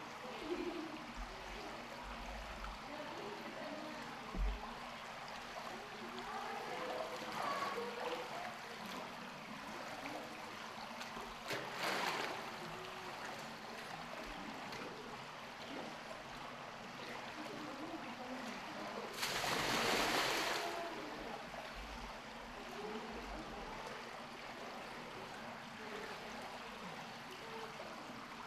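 Steady rush of running water in a polar bear's pool, with faint distant voices of onlookers. Two brief louder gushes, one about twelve seconds in and a longer one around twenty seconds.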